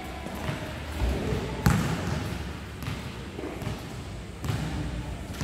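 A basketball thudding on the court during play in a large indoor sports hall, with scattered knocks and a sharp impact a little under two seconds in.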